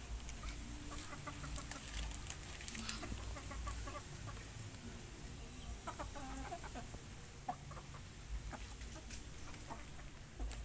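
Young Bangkok-type chickens, about four months old, making short soft clucks now and then, with scattered sharp clicks over a low rumble.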